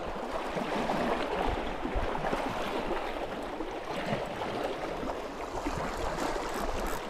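Sea water washing against shoreline rocks, a steady rushing of water.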